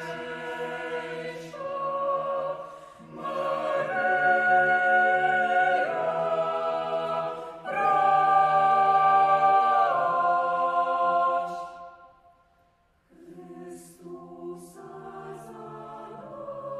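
Mixed chamber choir singing a cappella: held chords in phrases, fullest in the middle. The choir breaks off briefly about twelve seconds in, then comes back with a softer phrase.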